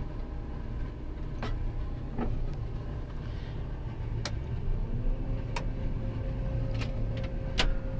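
An engine idling steadily, with a handful of sharp metallic clicks scattered through it and a steady hum that comes in about five seconds in.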